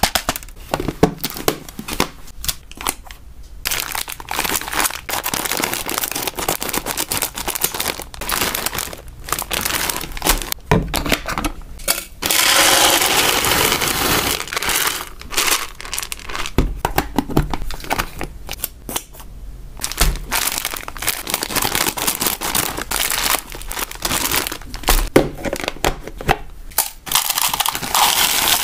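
Plastic and foil snack packaging crinkling and rustling as it is handled, with dry hamster treats rattling in irregular crisp crackles. There is a louder, steadier rush a little before halfway through.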